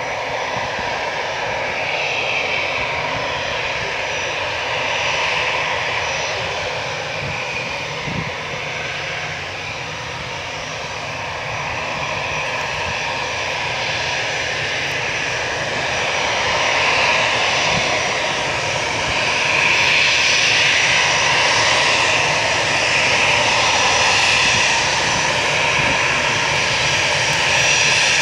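Airbus A320's twin jet engines running at taxi power as the airliner taxis: a steady jet rush with a thin high whine on top, growing louder in the second half as the plane comes closer.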